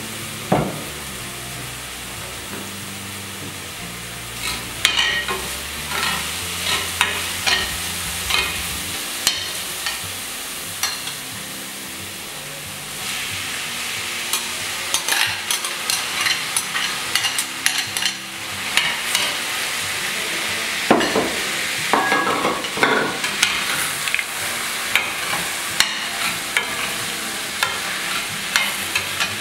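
Chopped onion and cilantro sizzling in oil in a stainless steel frying pan, with a steady frying hiss. Diced tomato is spooned into the pan and stirred with a metal spoon, which clicks and scrapes against the pan; the sizzle grows louder about halfway through.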